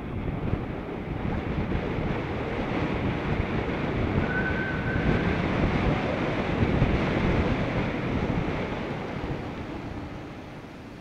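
Wind rushing over the microphone of a moving bicycle, swelling to its loudest about seven seconds in and easing off near the end. A brief high steady tone sounds for about a second around four seconds in.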